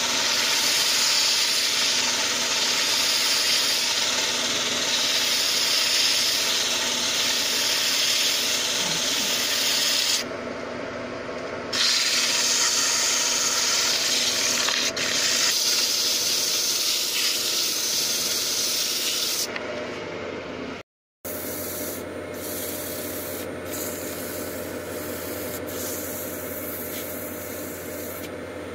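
Hand-held sandpaper rubbing on a spalted birch workpiece spinning on a wood lathe: a steady hiss over the lathe's hum during the first sanding pass. The hiss dips briefly about ten seconds in, breaks off for a moment just past twenty seconds, and is quieter after that.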